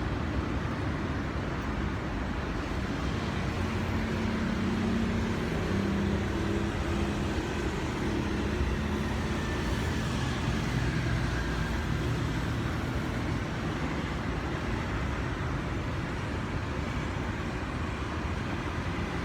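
Steady road-traffic rumble, with a vehicle's engine hum swelling for several seconds in the middle.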